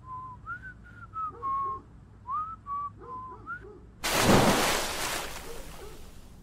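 A series of short whistled notes, some sliding up and some held level. About four seconds in comes a loud splash of a person falling into a swimming pool, dying away over a couple of seconds.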